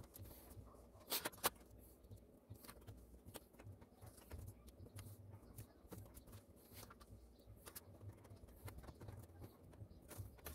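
Faint scattered clicks and taps of a hand pressing along the LED backlight strips on a TV's metal backlight panel, with two slightly louder clicks about a second in.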